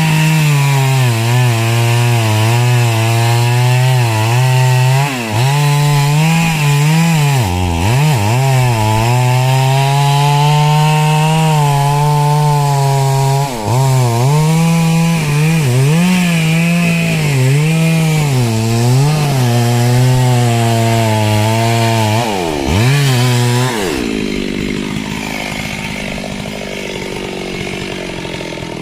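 Two-stroke chainsaw running at high revs while cutting wood, its pitch dipping and recovering again and again as the chain bites and frees. Near the end the engine note drops out, leaving a quieter rough noise.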